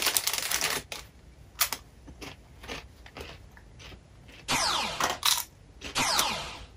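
A foil chip bag crinkling as it is opened, then a few faint crunches of chips being eaten. From about halfway in, a mobile phone goes off twice in short bursts about a second and a half apart.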